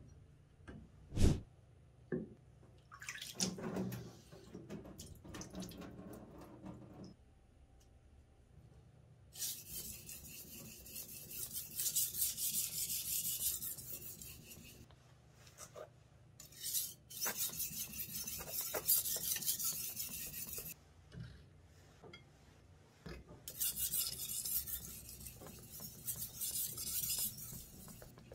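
A Henckels kitchen knife blade rubbed back and forth by hand across a wet whetstone, a gritty scraping hiss in three long spells, as the edge is hand-sharpened. A few sharp knocks and clicks in the first seconds, before the sharpening starts.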